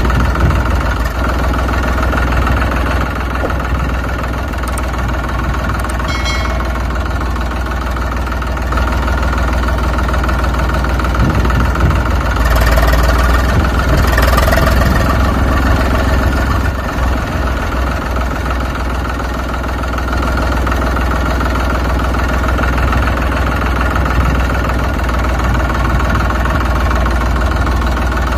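Tractor engine sound running steadily, a little louder for a few seconds around the middle.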